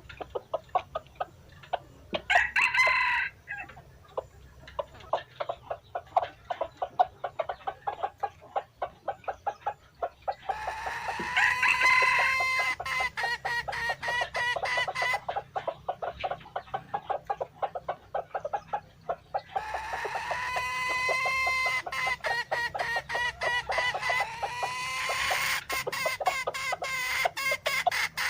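Dong Tao chickens clucking in rapid short pulses throughout. There is a brief call about two seconds in, and two long rooster crows, one starting about ten seconds in and another about twenty seconds in.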